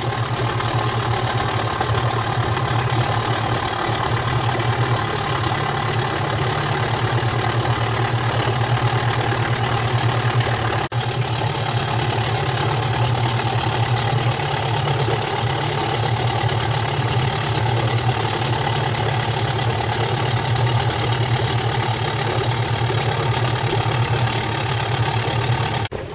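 Boat engine running steadily at constant speed, with a brief break about eleven seconds in.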